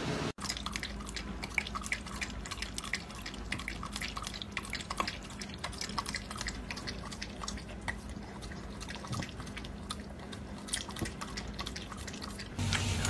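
Dog lapping milk from a stainless steel bowl: a quick, irregular run of wet clicks. Near the end a louder, steady hum cuts in.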